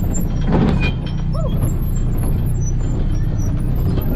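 Off-road buggy's engine running steadily, heard from the driver's seat as it drives along a dirt track, with a brief louder rush of noise about half a second in.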